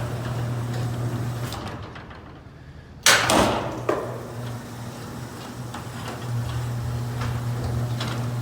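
Garage door opener motor running with a steady hum that fades about two seconds in. A loud bang follows about three seconds in, then a smaller click, and the motor hums again as the door reverses: the safety pressure switch on the door's bottom edge has been triggered.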